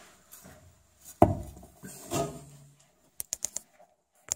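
Knocks and clicks from digging in compost: one sharp knock about a second in, a duller knock a second later, then a quick run of small clicks near the end.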